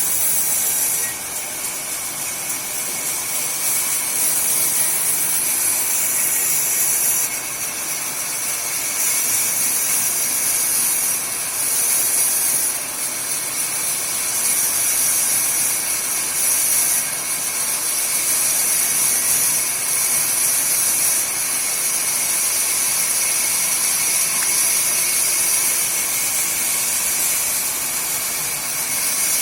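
Sawmill saw running and cutting wood: a steady, loud, high hiss that dips and swells every few seconds.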